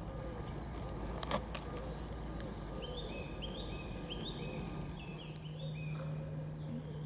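A wild bird singing in woodland: a run of about eight short rising notes in the middle. A few sharp clicks about a second in are the loudest sounds.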